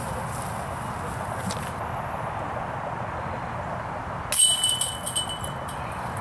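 A disc striking a metal disc golf basket about four seconds in, a sudden jangle of chains and ringing metal that fades over about a second, over a steady outdoor hiss.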